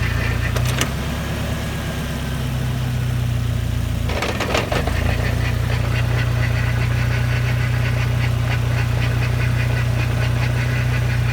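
1996 Mazda Miata's 1.8-litre four-cylinder engine running steadily with its manual transmission in fourth gear: a steady low hum with a light, rapid ticking over it and a brief disturbance about four seconds in. The ticking belongs to a weird noise that the owner says comes from the transmission and cannot identify.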